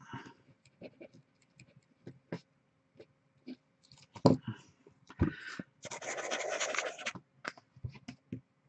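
A marker scribbling hard across paper for about a second, scratching out a line on a printed list. Light clicks and taps come before it, with a louder knock or two just before the scribbling.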